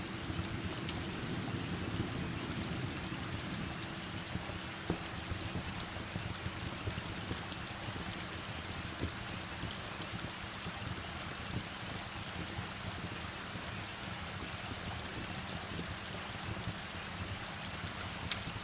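Steady heavy rain with sharp, scattered crackles and pops from a wood fire. A low held tone fades away over the first few seconds.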